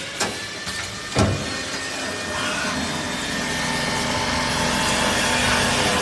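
Small CNC automatic lathe machining metal under coolant: a couple of sharp clicks in the first second or so, then a steady hiss and hum of spindle, cutting and coolant spray that grows a little louder.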